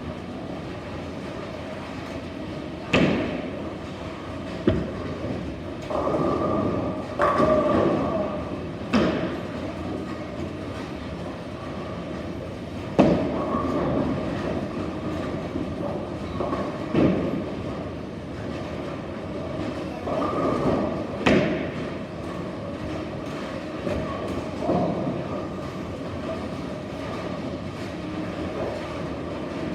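Bowling alley din: a steady rumble of bowling balls rolling down the lanes, broken by half a dozen sharp crashes of balls striking pins, with louder swelling rolls now and then.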